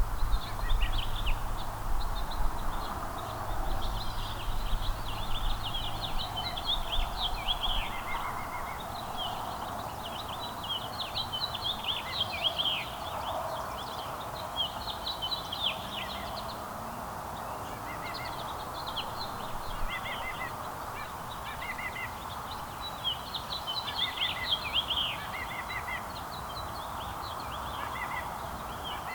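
Small songbirds chirping and twittering in quick, overlapping calls on and off throughout, over a steady background hum. A low rumble underneath fades out about eight seconds in.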